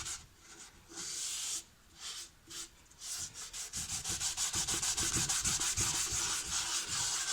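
Mahogany stain being rubbed by hand onto a stripped and sanded wooden radio cabinet: quick back-and-forth rubbing strokes, pausing twice in the first couple of seconds, then running on steadily.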